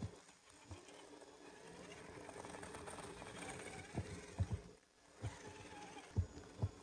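Traxxas TRX-4 RC crawler's electric motor and gears whining as it crawls over rock, dropping out briefly near the middle, with several low thumps.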